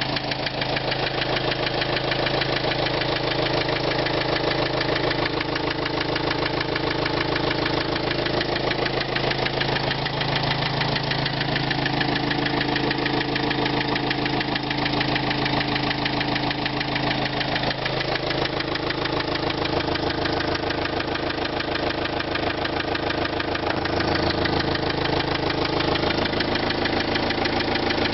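Renault Trafic's 1.9 dCi four-cylinder turbodiesel engine running steadily at idle with a rapid, even knock in its running: the engine knock the owner is showing.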